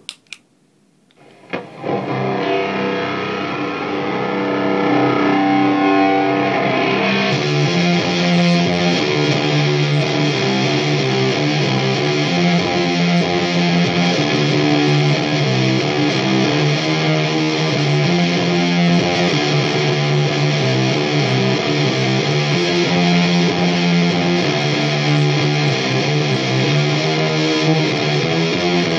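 Electric guitar played through distortion and effects, coming in loud after a click or two about a second and a half in. It plays a heavy, repeating low-note riff that turns brighter about seven seconds in.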